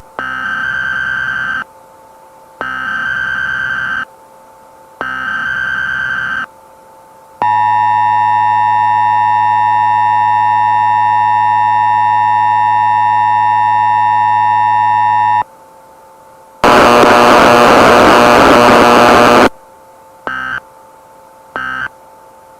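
Emergency Alert System test signal: three screeching digital header bursts, then a steady two-tone attention signal lasting about eight seconds. A loud burst of noise of about three seconds follows, then three short end-of-message bursts near the end.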